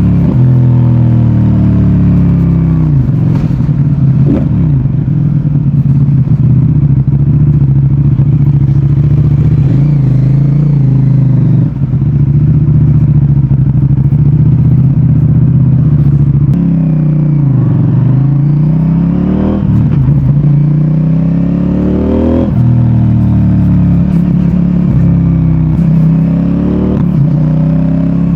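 CFMOTO 800NK Advanced's parallel-twin engine and exhaust on the move: the revs fall away near the start, hold steady for a long stretch, then dip and climb again twice in the second half as the bike slows and accelerates.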